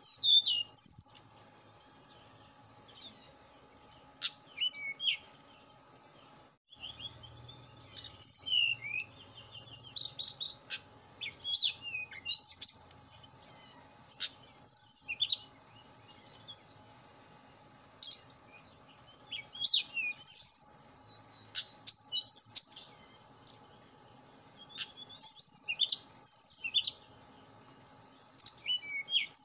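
Caged tledekan gunung (blue flycatcher) singing: bursts of quick, high whistled and chirping notes that slide up and down, with short pauses between phrases.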